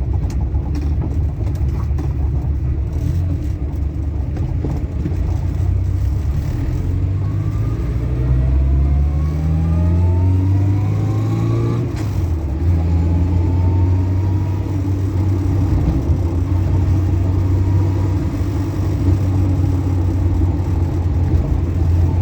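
Keeway RKV 125 motorbike's single-cylinder engine under way, rising in pitch as it accelerates for several seconds. About twelve seconds in there is a brief dip at a gear change, then it runs at a steady speed.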